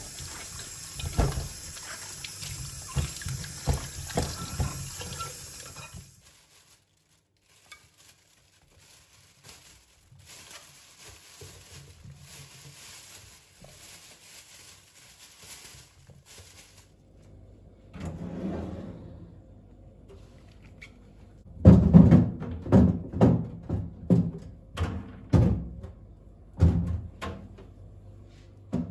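Water running from a kitchen tap into the sink, stopping about six seconds in. After a quiet stretch, a run of loud, dull thunks and knocks follows, unevenly spaced, from a little over twenty seconds in.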